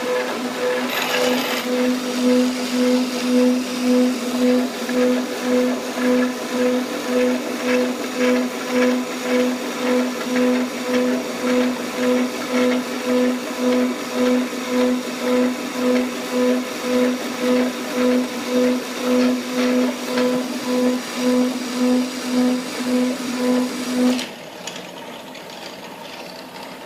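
A small electric motor running with a steady hum that pulses about twice a second, then drops to a much quieter sound near the end.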